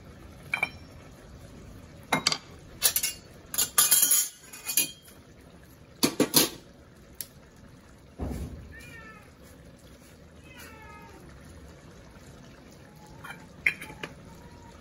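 A handful of sharp clinks and knocks of utensils against a metal wok, then a cat meows twice.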